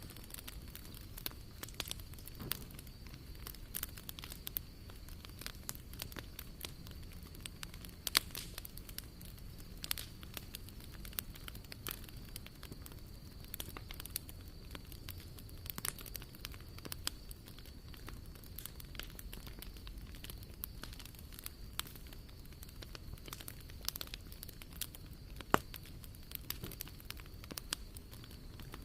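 Wood fire crackling in a fire pit, with irregular sharp pops and snaps over a low steady hiss of burning, one louder pop near the end. A faint steady high-pitched tone runs underneath.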